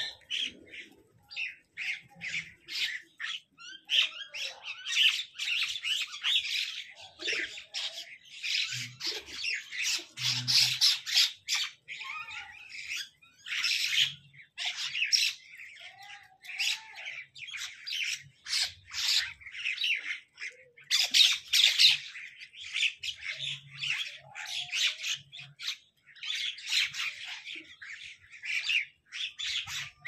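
Parakeets calling, a rapid, nearly unbroken run of short high-pitched calls.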